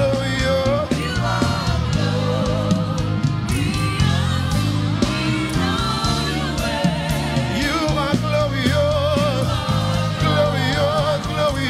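Live gospel worship music: voices singing long, wavering notes over a band with steady bass and drums.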